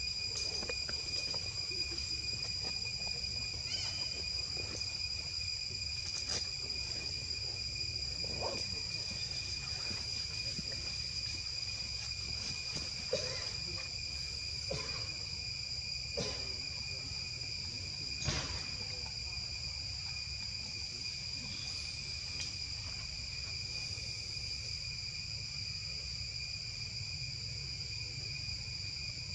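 A steady high insect drone of cicadas or crickets runs throughout over a low rumble. A handful of short, sharp squeaks or clicks are scattered through it, the strongest about two-thirds of the way through.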